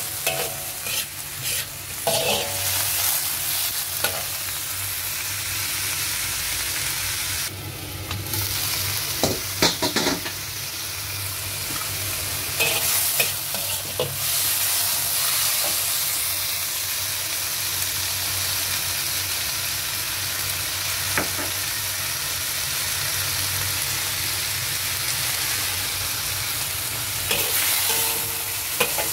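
Celery stir-frying in a hot wok: a steady sizzle, with a metal spatula scraping and clicking against the wok from time to time.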